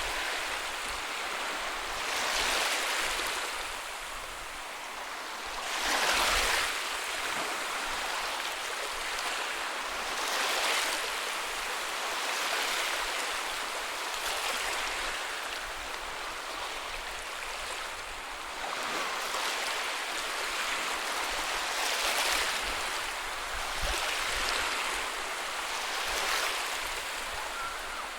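Ocean waves breaking and washing up a beach: a steady hiss of surf that swells every few seconds as each wave comes in, one of the largest about six seconds in.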